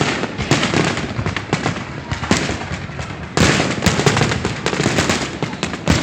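Fireworks display: a dense run of booming shell bursts and crackling, with a louder, thicker volley starting about three and a half seconds in.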